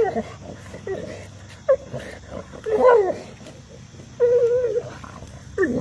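Bulldog making turkey-like gobbling, warbling noises while chewing on a rock: a series of short vocal bursts, with longer wavering calls about three seconds in and again just after four seconds, and a falling call near the end.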